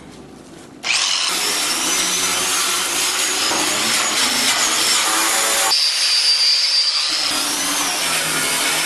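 Corded hand-held power tool running against the sheet steel of an old truck bed, a loud, steady grinding noise with a high whine, starting about a second in. About six seconds in the grinding drops away for about a second, leaving mostly the whine, then comes back.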